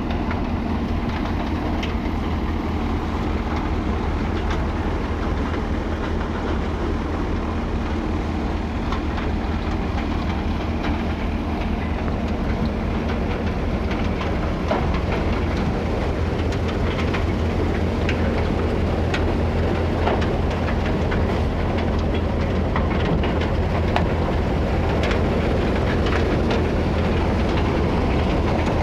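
Tractor-driven Punjab thresher running steadily for soybean threshing: a constant low machine drone with many scattered sharp ticks and rattles.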